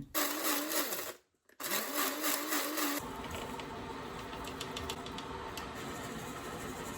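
Electric blade coffee grinder running on a load of beans in two short bursts with a brief stop about a second in, its motor pitch wobbling as the grinder is shaken while grinding. After about three seconds it gives way to a quieter, steady hiss with a few light ticks.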